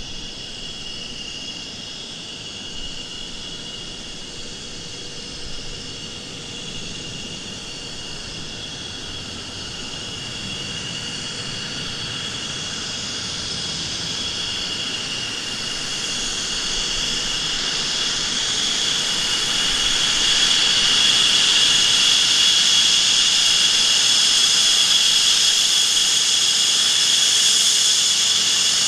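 McDonnell Douglas F-15 Eagle's twin Pratt & Whitney F100 turbofans whining as the jet taxis out onto the runway. A high-pitched whine sits over a steady rush and grows louder over the first twenty seconds or so, then holds.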